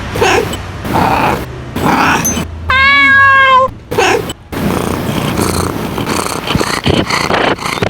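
Domestic cat vocalising: a few short calls, then one long, level meow about three seconds in, followed by quieter, scrappier sounds.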